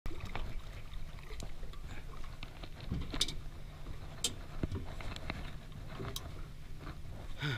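Small fishing boat on the water: a steady low rumble with scattered knocks and clicks.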